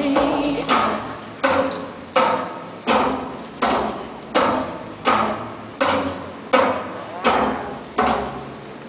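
Clock-tick sound effect on the routine's backing track, played over the hall's PA: a steady series of loud, sharp ticks about one every 0.7 seconds, each trailing off in the hall's echo.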